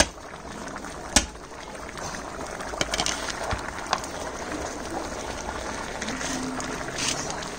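Chicken biryani's rice and spiced water simmering in a large aluminium pot over a wood fire: a steady bubbling hiss. A single sharp knock about a second in is the loudest sound, with a few fainter clicks a little later.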